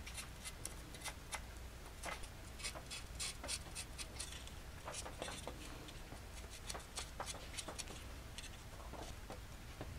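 Faint, scattered clicks and light rubbing of hands handling small plastic parts and glue packaging.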